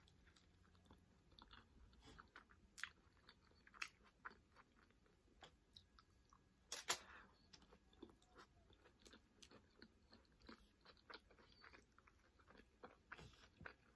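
Quiet chewing of beef nachos with homemade tortilla chips: scattered soft crunches and small wet mouth clicks, the loudest crunch about seven seconds in.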